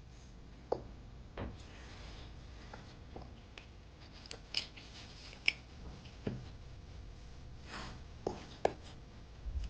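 Faint handling noises: scattered soft clicks and brief rubbing of small objects being moved about.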